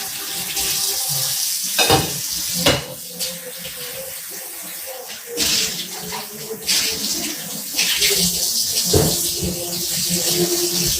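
Tap water running into a kitchen sink while dishes are washed, with a few sharp knocks of dishes or pots, around two and three seconds in and again near the end.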